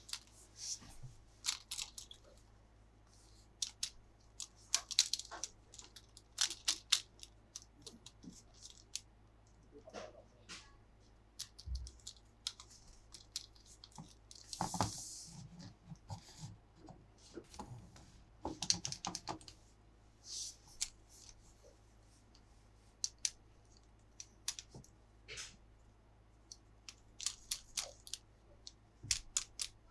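Plastic toy parts and packaging being handled: scattered clicks and knocks, with short tearing or crinkling rustles, the longest about five seconds in and again around fifteen seconds in.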